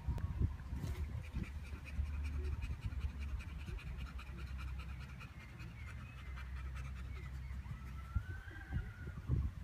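Young Rottweiler panting in quick, even breaths.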